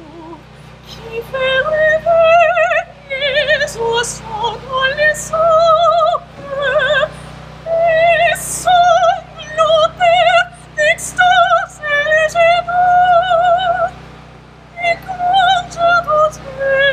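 Coloratura soprano singing in operatic style, with wide vibrato on held high notes and quick changes of pitch between them, pausing briefly near the end before going on.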